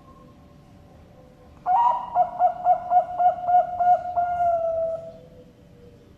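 Zebra dove (Bangkok perkutut) singing one cooing phrase: a quick run of short coos, about four a second, ending in a longer held note that falls slightly.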